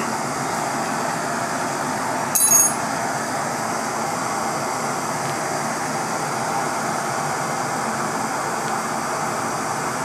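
Two MAP-gas torches burning with a steady hiss as they fire into a small gold-melting furnace, the gold just starting to melt. A single short metallic clink rings out about two and a half seconds in.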